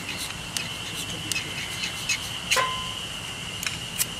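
Ferrocerium fire-starter rod scraped hard with a striker in a series of quick, sharp strokes at irregular intervals, the strongest about two and a half seconds in, throwing sparks to light feather-stick kindling.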